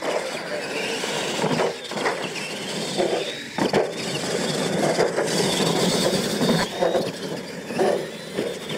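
Radio-controlled monster trucks racing side by side across a dirt track: their motors and drivetrains give a high whine that rises and falls over the hiss of tyres on dirt.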